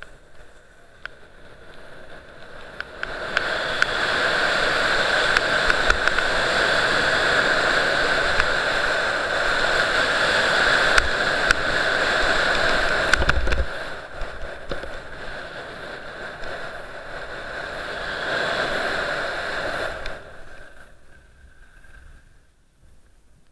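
Skis sliding and scraping over packed snow at speed, with wind rushing over the camera's microphone. The noise builds about three seconds in, dips briefly around halfway, and dies away near the end as the skier comes to a stop.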